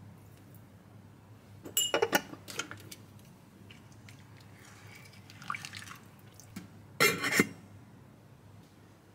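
Soup stirred in a stainless steel pot with a plastic spoon: a clatter of the spoon knocking against the pot about two seconds in, then soft sloshing of the broth. About seven seconds in, a stainless steel lid is set on the pot with a brief ringing clank, the loudest sound.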